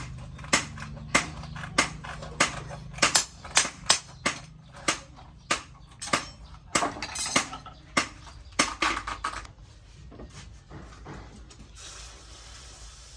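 Hammer blows on metal, a steady run of sharp strikes about one to two a second, as a knife blade is forged. The strikes stop about nine or ten seconds in, and a steady hiss starts near the end.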